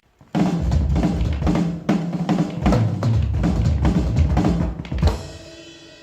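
Acoustic drum kit recorded through condenser overhead microphones, played in a fast, busy run of bass drum and snare hits. A final loud hit comes about five seconds in, and cymbals ring out after it.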